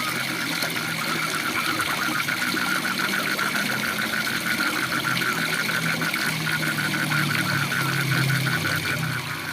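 Waterfall rushing steadily, with a frog giving a rapid pulsing call over it. A low hum grows stronger in the second half.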